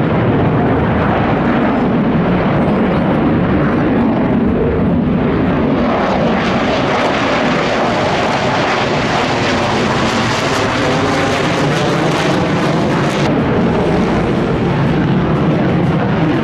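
Fighter jet engine noise: a loud, steady rush of jet exhaust.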